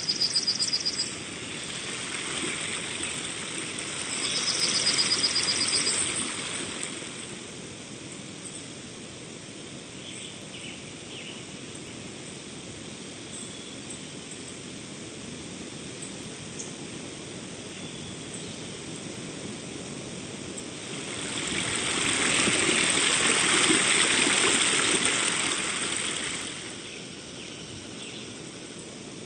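Outdoor ambience: a steady hiss, with a small bird's rapid high trill right at the start and again a few seconds later, and a louder rushing swell that builds and fades away about two-thirds of the way through.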